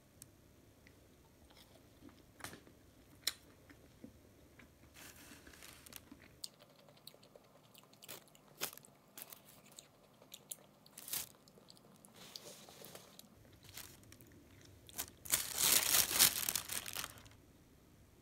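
Sporadic crunches and clicks of crusty bread being torn and chewed, with a crinkly plastic bakery bag underneath. A longer, louder stretch of crunching comes about three-quarters of the way through.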